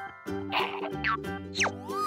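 Children's cartoon background music with a bouncy bass line, overlaid by quick falling whistle sound effects about three times, then a rising whistle near the end.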